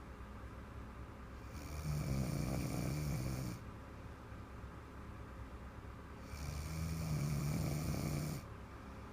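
A sleeping woman snoring: two long, low buzzing snores, each about two seconds, about five seconds apart.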